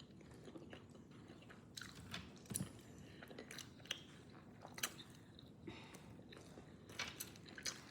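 Faint close-up chewing and biting of fried chicken wings, with scattered sharp crunchy clicks at irregular moments.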